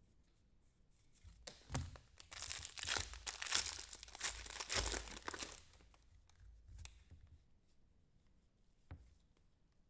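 A foil trading-card pack being torn open and its wrapper crinkled: a few seconds of ripping and rustling, then a few faint clicks.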